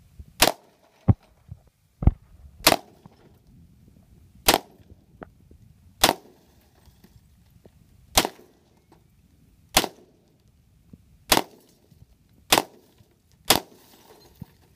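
AR-15 rifle fired shot by shot in semi-auto, nine sharp cracks spaced about one to two seconds apart. Two duller thumps come about one and two seconds in.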